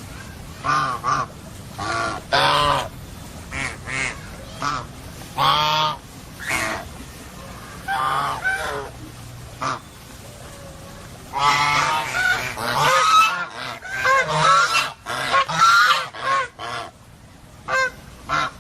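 Domestic geese honking, a string of short loud calls that grows into a dense run of overlapping honks in the second half.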